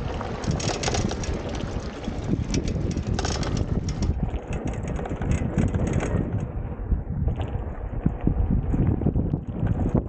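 Wind buffeting the microphone over a steady low rumble of tyres on a sandy dirt track, with frequent small knocks and rattles as an electric off-road scooter rides over the bumpy surface.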